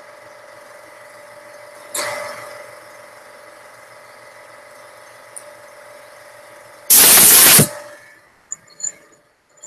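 A steady mechanical hum with a sharp knock about two seconds in that rings off over a second. Around seven seconds in comes a loud burst of hissing noise lasting under a second, after which the hum stops.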